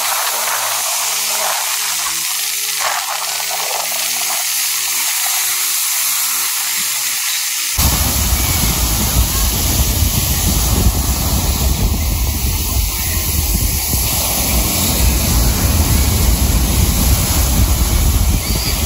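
Surf on a sandy beach: waves breaking and washing in as a steady, loud hiss. About eight seconds in it cuts to a louder, deeper rush of breaking waves.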